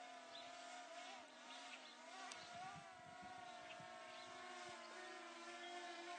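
Faint, steady whine of a camera drone's propellers flying overhead, its pitch wavering slightly.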